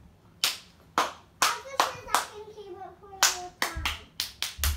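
Hand clapping: a few slow, uneven claps at first, then quicker, steadier claps at about three or four a second from about three seconds in.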